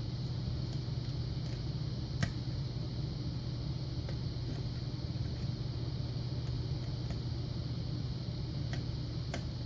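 Faint, scattered light clicks of a lock pick working the pin stacks inside a Yale Punisher lock while it is held under tension, one a little louder about two seconds in, over a steady low hum like a fan.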